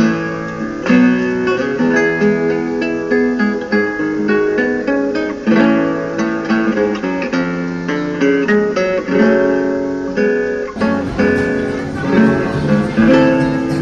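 Guitar music: notes plucked and strummed in a running melody. About eleven seconds in, the sound turns brighter and fuller.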